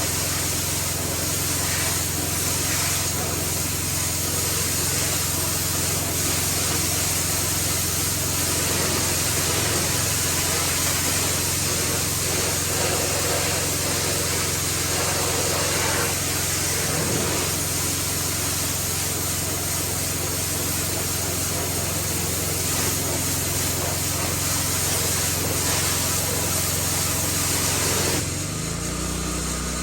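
A 20-year-old engine-driven pressure washer running steadily under load, its spray jet hissing. Near the end the spray hiss drops away and the engine note changes as the spraying stops.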